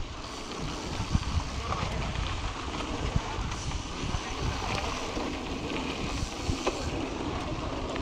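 Mountain bike rolling over a dirt and gravel track: steady tyre noise with occasional small knocks and rattles, under wind buffeting on the microphone.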